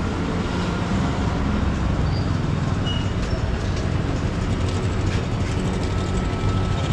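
Busy street ambience dominated by a steady low rumble of vehicle traffic, with scattered light clicks and clatter over it.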